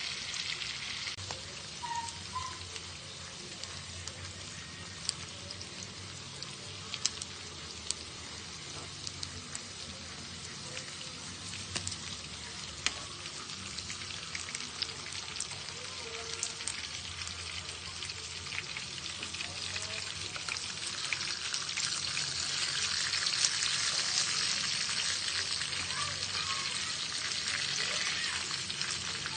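Pork chops sizzling as they cook, a steady crackling hiss with scattered sharp pops of spitting fat. The sizzle grows louder about two-thirds of the way in.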